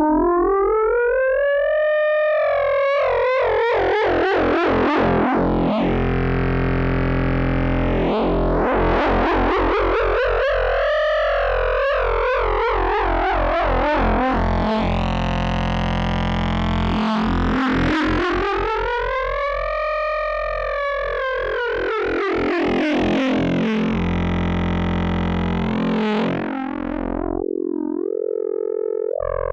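K-ACCUMULATOR synthesizer oscillator module sounding a sustained drone whose blended harmonics are swept by an LFO. The brightness rises and falls in slow waves about every nine seconds over a steady bass. Near the end the tone thins and the bass briefly drops out.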